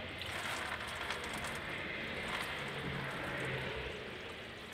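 Engine coolant pouring out of the opened cooling system of a Toyota 1GR-FE V6 and splashing into a drain bucket underneath, a steady pour that eases a little near the end.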